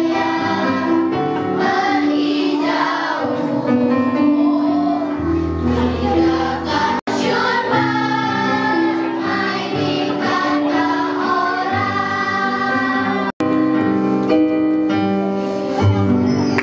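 Children's choir singing a song together over musical accompaniment. The sound cuts out for an instant twice.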